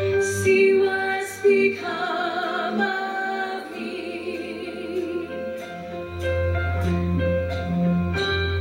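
Show choir performing: a female soloist sings held notes with vibrato over the choir and a live band with bass and steady drum beats.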